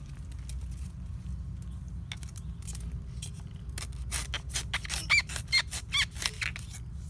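Dry bamboo leaves and twigs crackling and snapping as a Taiwan giant bamboo shoot is worked and cut free at its base, with three short high squeaks about five to six seconds in.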